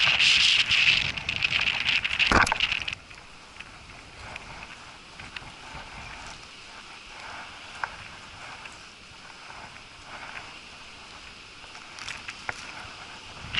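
Wind and rain noise on the microphone, loud for about the first three seconds, then dropping suddenly to a low hiss with faint scattered clicks.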